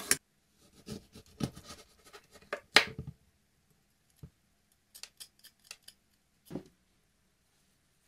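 Short knocks and clicks of a metal box grater being handled over a glass bowl and wooden board, the loudest about three seconds in. After a pause come a few quick clicks and a soft thump as a kitchen knife cuts a lemon.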